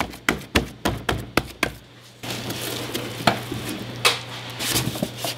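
Hands patting and slapping a pepper rub onto a raw brisket, quick repeated slaps about three or four a second, which stop about two seconds in. A steady kitchen hum with a few knocks follows.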